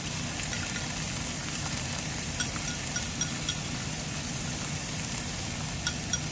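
Olive oil sizzling steadily in a frying pan with garlic and shallot as diced ham and Chinese sausage are tipped in from a bowl, with a few light clicks of chopsticks and pieces against the bowl and pan.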